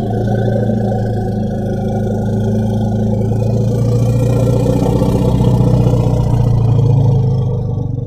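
Elephant rumbling: one long, low, steady call that holds its pitch throughout, a little louder toward the end.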